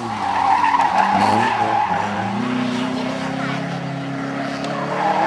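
Car being driven hard on a tarmac special stage: the engine revs up and down, then holds higher revs. The tyres squeal through the corners, loudest early on and again near the end.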